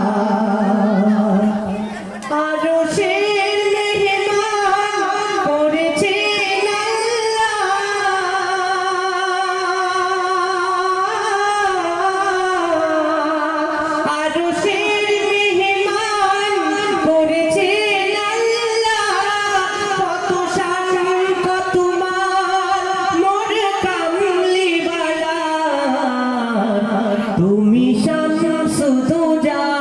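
Singing of an Islamic devotional gojol: long, drawn-out, ornamented notes that jump to a higher line about two seconds in and fall back to the lower line near the end.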